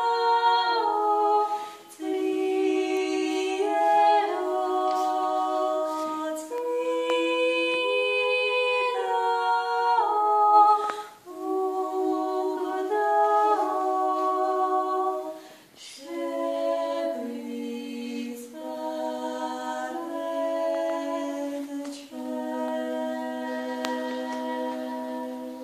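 Two women singing a Georgian Orthodox church chant unaccompanied, in harmony. Held notes in phrases a few seconds long, with short pauses for breath between them.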